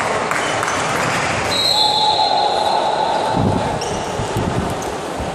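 Volleyball hall between rallies: a short, high referee's whistle about one and a half seconds in, over a background of players' voices and scattered thuds of a ball and feet on the court.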